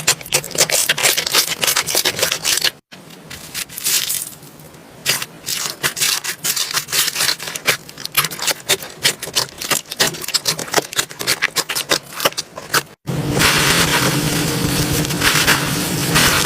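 Slime being squeezed and pressed by hand, giving a dense run of small clicks, crackles and pops. The sound breaks off abruptly twice, and the last few seconds are a thicker, steadier crackling.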